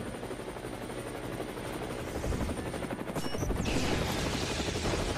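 Added action sound effects: a fast, steady rattling chatter like rapid gunfire or rotor chop. About three and a half seconds in, a hissing energy-blast whoosh joins it.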